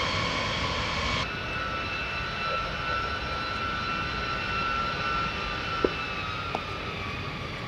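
Jet engine noise: for about the first second, the engines of a taxiing B-52 bomber, then, after a cut, a twin-tailed fighter jet in flight, a steady rushing sound with a high whine.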